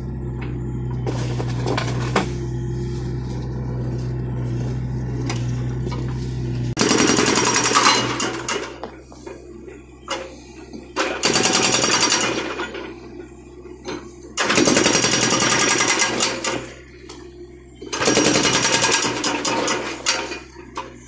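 Hydraulic breaker hammer (BTI) on a John Deere mini excavator pounding concrete in four bursts of rapid blows, each about two seconds long, the first starting about seven seconds in. Before and between the bursts the excavator's engine runs steadily.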